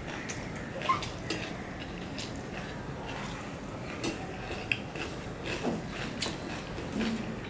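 Eating rice by hand from a stainless steel plate: fingers mixing rice with fried water lily stems, with scattered light clicks of the fingers against the plate, and chewing.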